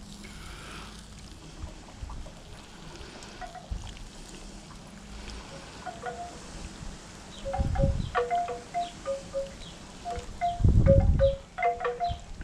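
Wind chimes ringing in the breeze, a few short notes at two or three pitches, coming more often in the second half. Two gusts of wind rumble on the microphone, the louder one near the end.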